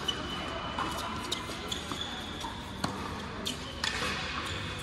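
Tennis rally on an indoor hard court: a string of sharp racket strikes and ball bounces, roughly a second apart.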